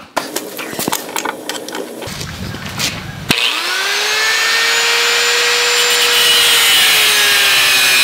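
A few seconds of clattering and knocks. Then an angle grinder switches on with a sharp click, spins up to a steady whine and grinds into a steel bracket clamped in a vise, with a loud, dense hiss.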